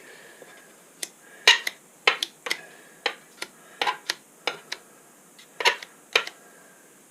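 Hand tools and the stove door being handled during door-gasket work: about a dozen irregular sharp clicks and taps of metal and glass.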